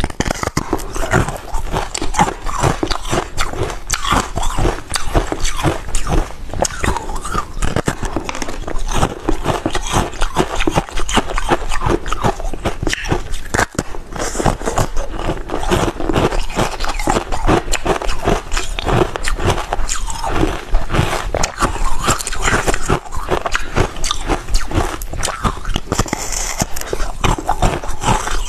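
Ice with basil seeds set in it being bitten and crunched, with rapid crackling and cracking that goes on without a break.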